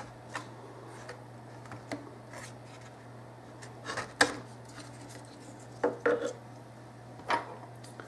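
Scattered plastic clicks and knocks as the unscrewed handle cover of a DeWalt DWS520 track saw is worked loose and lifted off. The loudest knock comes about four seconds in, with a few more near six and seven seconds, over a faint steady low hum.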